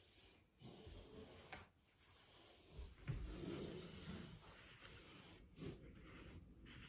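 Faint rubbing of a foam roller rolling under the body on a wooden floor, with a soft thump about three seconds in.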